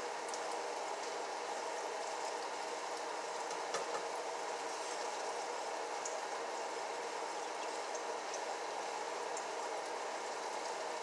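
Chicken gizzards frying in grease in a skillet: a steady sizzle, with a couple of light clicks from a cooking utensil against the pan.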